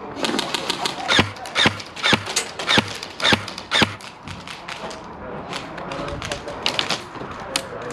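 Airsoft guns firing single shots in a quick string, about two to three a second for the first four seconds, then a few scattered shots near the end.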